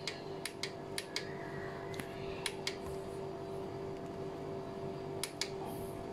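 Sharp, irregular clicks and taps of hands handling parts and connectors in a car's engine bay, about ten in all, mostly in the first three seconds with a close pair near the end, over a steady hum.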